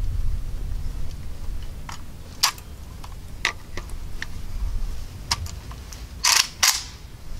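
Metal clicks and clacks of a drum-magazine gun being handled and readied: scattered single clicks, then a louder double clack near the end.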